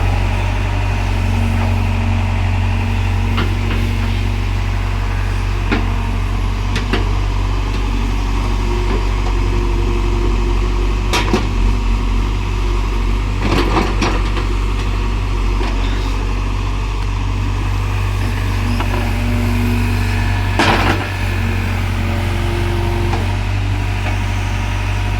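Excavator's diesel engine running steadily with a deep hum, with a few sharp knocks over it, the loudest near the end.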